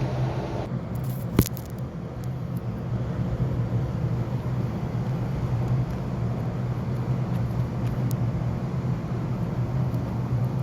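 Steady low rumble, with one sharp click about a second and a half in.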